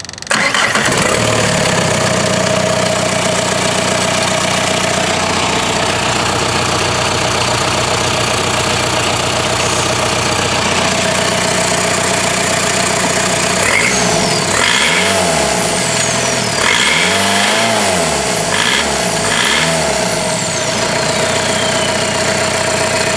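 Volkswagen 1.9 TDI (1Z/AHU) four-cylinder turbodiesel, running out of the car on a stand, catches at the start and idles steadily in a used-engine test run. About two-thirds of the way through it is revved several times in quick succession, with a high whine falling away afterwards, then settles back to idle.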